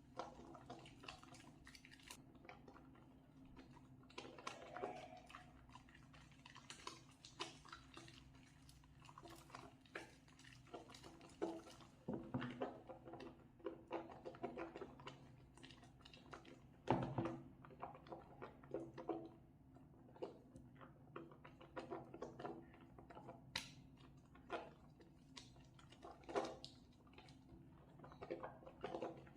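Wet hands lathering soap: irregular soft squelches and sticky clicks with no steady rhythm, the loudest squish about halfway through.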